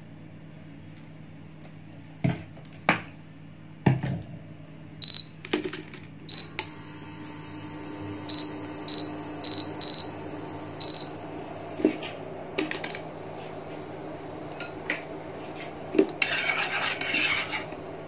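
Induction cooktop touch controls beeping about seven times as it is switched on and its power set, after a few knocks. From about six and a half seconds in, the cooktop's fan and coil hum steadily. Near the end, a wooden chopstick scrapes across the nonstick pan, spreading the oil.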